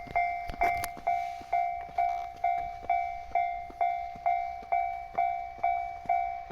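Japanese railway level-crossing alarm bell ringing, one ding repeating steadily about twice a second.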